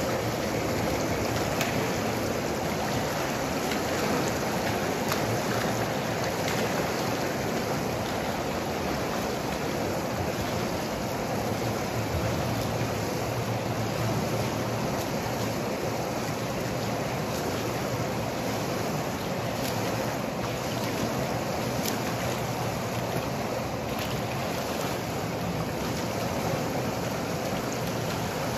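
Steady splashing and churning of pool water from swimmers doing front crawl.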